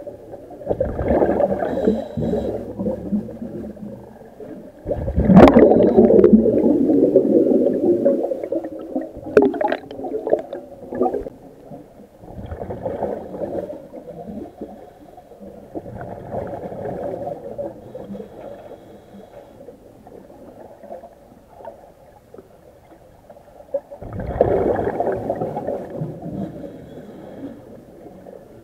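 Underwater bubbling and gurgling of a diver's exhaled breathing gas, heard through an underwater microphone: rumbling bursts every few seconds, the loudest about five seconds in, lasting some three seconds.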